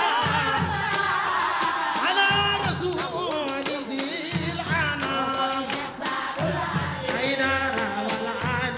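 Devotional chant sung in long, wavering melodic lines with vibrato, over drums beating a recurring low pattern.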